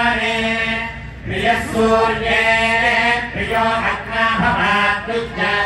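Vedic mantra chanting: a voice intones held, pitched syllables, each lasting about a second, with brief breaks between phrases.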